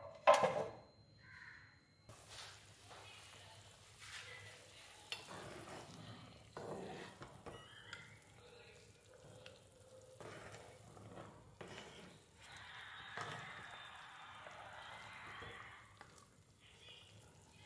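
A loud clatter about half a second in as the aluminium plate lid comes off the karahi, then mutton bubbling and sizzling in coconut oil and water while a metal spatula stirs and scrapes the pan.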